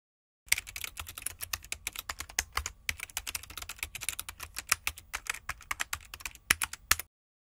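Typing sound effect: a rapid, uneven run of keystroke clicks that starts about half a second in and stops abruptly near the end.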